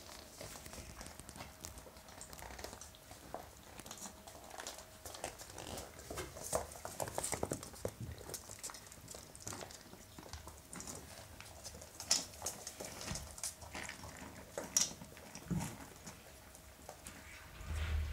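Hungarian vizsla puppies eating dry kibble from a stainless-steel bowl: irregular clicks and crunches of kibble and small paws against the metal bowl, busiest about six to eight seconds in.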